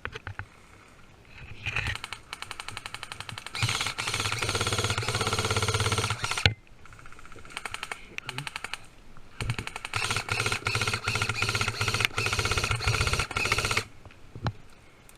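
Airsoft guns firing on full auto: two long bursts of rapid, even clicking, each lasting about four seconds, with a short lull between.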